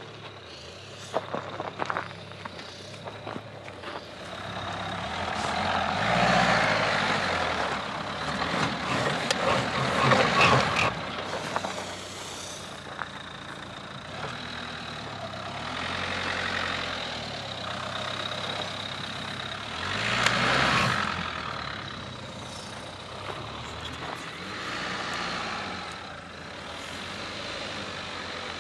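Dacia Duster 4x4 engines running under load off-road, the engine note rising and falling in several swells, loudest about ten seconds in and again about twenty seconds in.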